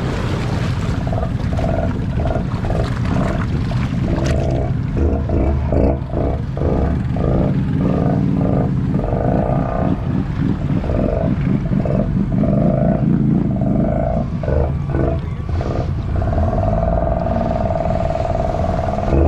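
Honda ATV engines running hard, the throttle blipped on and off in quick short revs, then held for longer pulls of a second or two, over a heavy low rumble.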